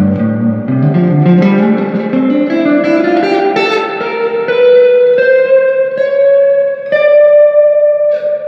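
Electric guitar played through a Fender '65 Deluxe Reverb Reissue amp with reverb, freshly fitted with new power tubes and biased. A run of single notes climbs steadily in pitch, then settles into a few long, ringing higher notes.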